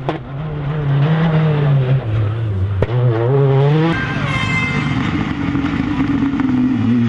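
Rally car engine revving hard and changing pitch as it accelerates, with a sharp crack about three seconds in. About four seconds in the engine note drops to a lower, steadier tone with a high whine over it.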